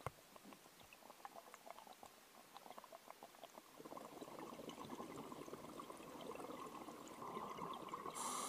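Scuba diver's breathing heard underwater through the camera housing: faint crackling and clicking at first, then bubbling from exhaled air building from about halfway, and a louder rush for about a second near the end.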